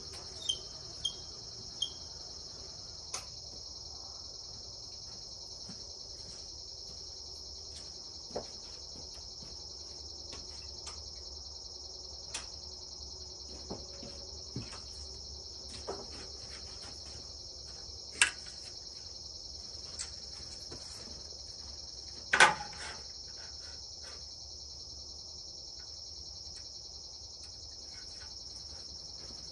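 A steady, high-pitched chorus of crickets or similar insects, with scattered clicks and knocks; the two loudest knocks come about two-thirds and three-quarters of the way through.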